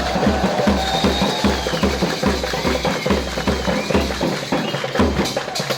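Loud music with a steady drum beat and deep bass pulses, under a wavering high melody line. The bass beat drops out about four seconds in.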